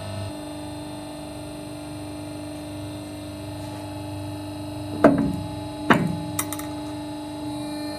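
Hydraulic press running with a steady hum. About five seconds in come two sharp cracks, a second apart, as the M8 steel bolts under the ram give way, followed by a few faint clicks.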